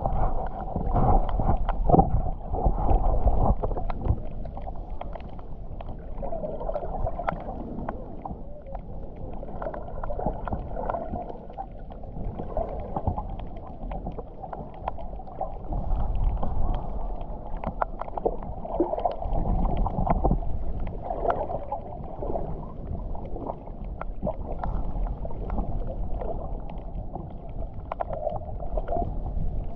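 Underwater ambience heard through a submerged camera: a muffled, surging rumble of moving water with many small crackling clicks scattered through it.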